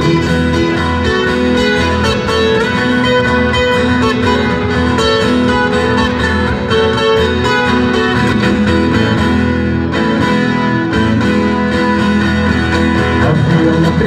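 Instrumental break of a viola caipira and an acoustic guitar playing together, strummed and plucked in a lively rhythm with no singing.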